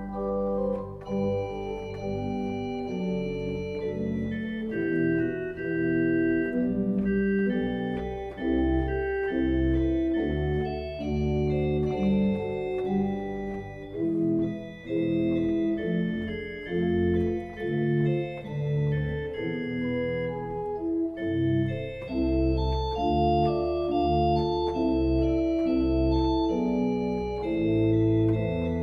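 Organ playing a slow piece of held notes over a moving bass line, the notes changing every half second or so.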